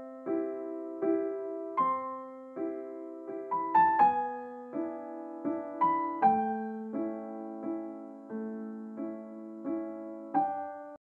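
Background piano music: slow, evenly paced chords, each struck note fading away. It cuts off suddenly just before the end.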